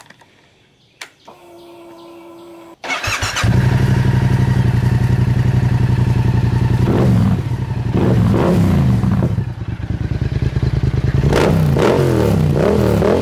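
A 2015 Yamaha FZ-07's 689 cc parallel-twin, fitted with an aftermarket Yoshimura exhaust, is started with the key. A brief faint hum is followed about three seconds in by a short crank, and then the engine catches and idles. It is revved up and back down a few times near the middle and again near the end.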